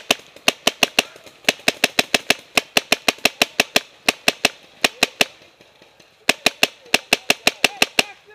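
Paintball marker firing rapid strings of sharp shots, about five to eight a second, with short breaks between strings and a longer pause about five seconds in.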